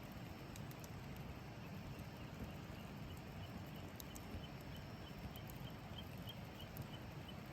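Wood fire burning: a low steady rumble with scattered sharp crackles and pops.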